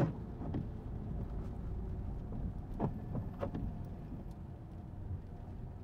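Car cabin noise, a steady low engine and road rumble, as the car rolls in second gear with the accelerator released.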